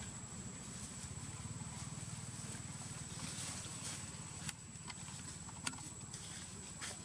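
Low, steady motor drone with a fine pulsing rhythm, and a thin high-pitched whine held over it. A few sharp clicks come in the second half.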